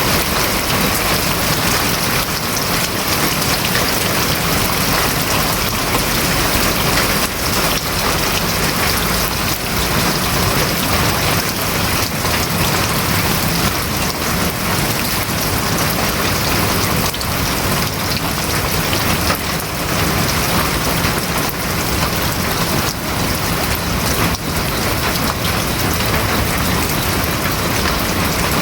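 Steady, heavy rain drumming on the roof of a house, a dense hiss made of countless individual drop impacts.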